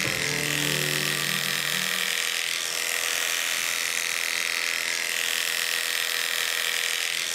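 Electric dog grooming clippers running steadily with a high-pitched buzz as they shave through matted fur.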